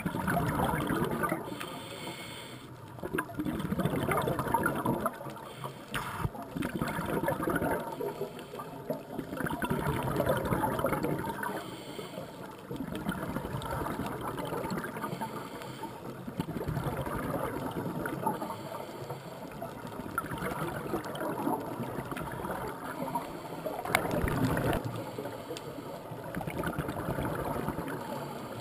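Scuba regulator breathing heard underwater: gurgling rushes of exhaled bubbles that swell and fade every few seconds.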